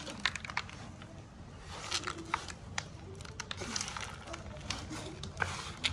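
Crumbly peanut biscuit dough being mixed and squeezed by hand in a bowl: irregular soft crunching with scattered sharp clicks as the crushed peanuts and dough crumbs are worked together.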